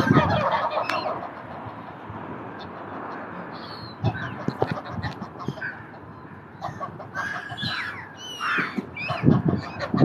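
Geese honking, loudest in the first second and again about nine seconds in, with quieter calls and short sliding calls between.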